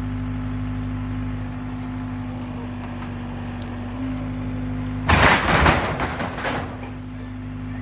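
Compact track loader's engine running steadily, then about five seconds in a loud crash with several impacts lasting about a second and a half: the goat shed being dropped as its roof comes off.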